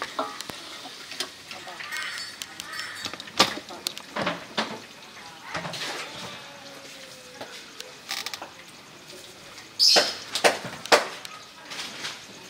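Scattered clinks and knocks of bowls and utensils being handled and set down on a table, the loudest cluster of sharp knocks about ten seconds in, with faint voices in the background.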